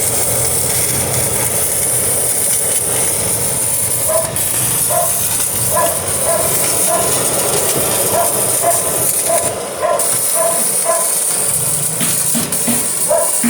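Stick-welding arc from a Kawasaki inverter welding machine set at about 100 amps, burning down an electrode rod with a steady hiss.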